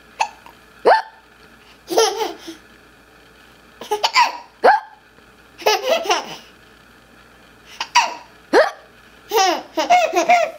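A small child hiccupping again and again, every second or two, each hiccup a short sharp squeak, with bursts of laughter at the hiccups in between.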